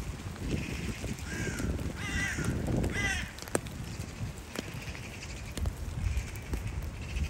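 A bird calls three times in quick succession, between about one and three seconds in, each call short and falling in pitch. Beneath the calls is a steady low rumble with a few scattered ticks.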